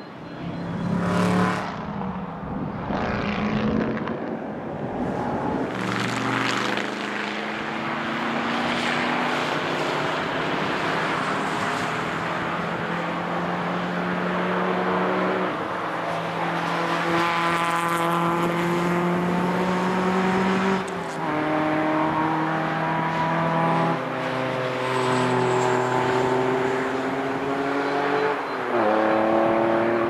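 Race car engines pulling hard at high revs as the cars climb, with several gear changes heard as sudden drops in pitch. A loud rush of noise about a second in.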